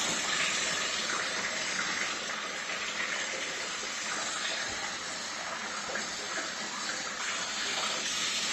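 Flood coolant water running and splashing steadily through the homemade chip conveyor.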